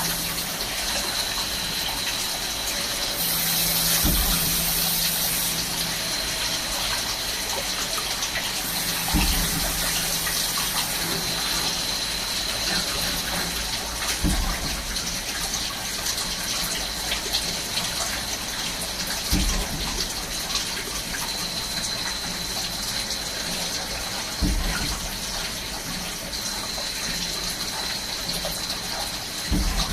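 Swiss-type CNC lathe running with cutting coolant spraying steadily over the work, under a faint steady high whine. A short low thump comes about every five seconds, six times in all.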